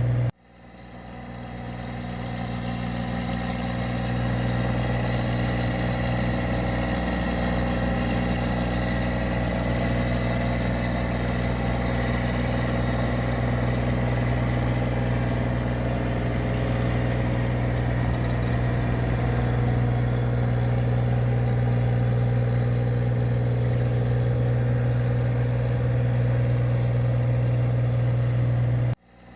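Engine of a paddy (rice) machine running steadily at a constant speed, a deep hum with a steady whine above it. The sound cuts out abruptly just after the start and fades back in over a few seconds, and cuts out again near the end.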